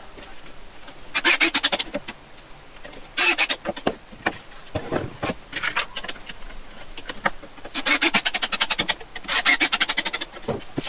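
Cordless drill-driver driving pocket-hole screws into pine frame joints, heard as four short bursts of rapid clicking. Knocks and taps from handling the wooden frame come between the bursts.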